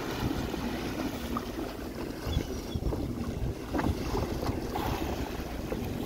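Boat under way: the hull's bow wave rushing through the water and wind buffeting the microphone, with a faint steady hum underneath.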